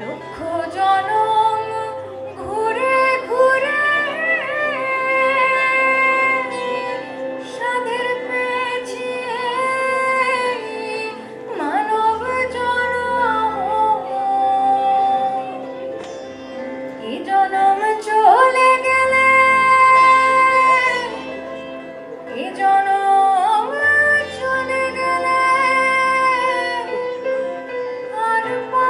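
A woman singing a slow melody in long, gliding phrases with held notes, over a steady drone and instrumental accompaniment; a low bass note sounds in short stretches.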